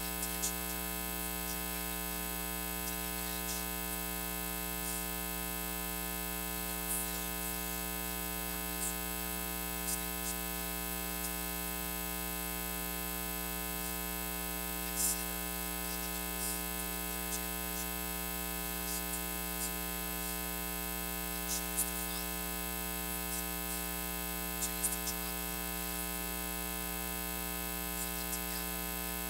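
Steady electrical mains hum with a buzz of many overtones, carried by the sound system or recording chain, with a few faint ticks scattered through it.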